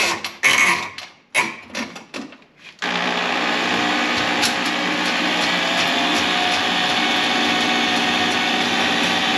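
A few short scraping and knocking sounds, then a motor-driven machine switches on about three seconds in and runs steadily, its pitch creeping slightly higher.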